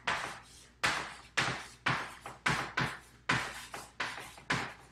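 Chalk writing on a chalkboard: a quick run of short taps and scratches, about two or three a second, one for each stroke of the letters.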